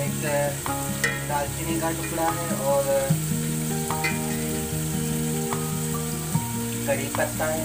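Sliced onions frying and sizzling in a steel pot, stirred with a steel ladle that scrapes against the pot a few times.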